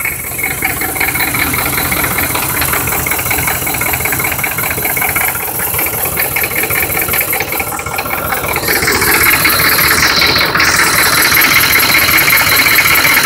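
Turbocharged 6.2 L diesel V8 of a 1986 Chevy K20 idling with a rough, rattling clatter. The clatter gets louder about two-thirds of the way through. The owner suspects a blown head gasket or a dead cylinder, though compression reads 375–400 psi on all eight cylinders.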